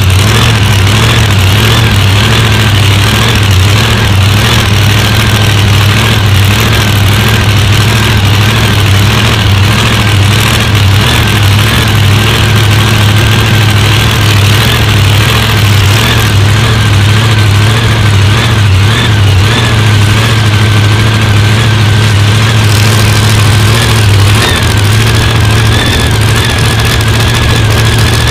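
Supercharged drag-racing engine idling, very loud and steady with a slightly uneven low beat, heard close up from its hood, with a thin steady whine above it.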